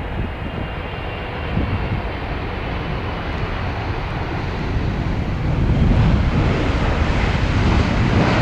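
Jet engines of a Boeing 777F freighter, the General Electric GE90s, making a steady rushing rumble that grows louder about five and a half seconds in.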